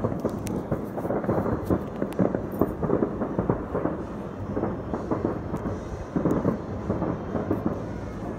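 Many fireworks bursting at once across a city, heard from afar: a continuous dense rumble of overlapping bangs and crackles with no break.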